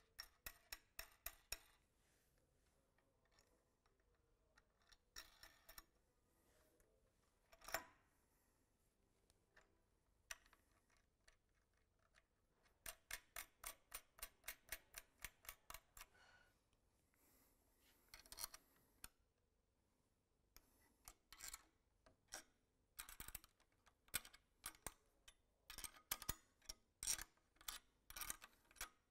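Quiet runs of quick, sharp clicks from a ratchet wrench tightening the bolts that hold a valve positioner's mounting bracket to the actuator yoke, in several bursts, with one louder metallic knock about eight seconds in.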